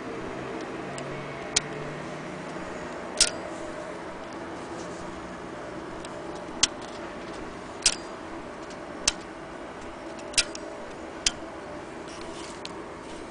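Sharp, irregularly spaced mechanical clicks from a vintage Frister & Rossmann sewing machine's mechanism as it is worked slowly by hand, about one click every second or so, over steady background noise.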